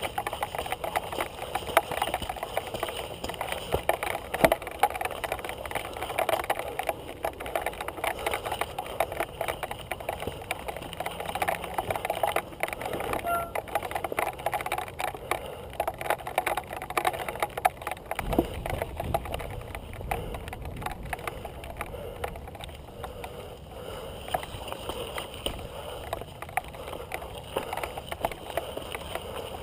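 Mountain bike rattling and clattering over a rough, rocky trail, a dense run of small knocks from the frame, chain and tyres on stone. A lower rumble joins in for a few seconds past the middle.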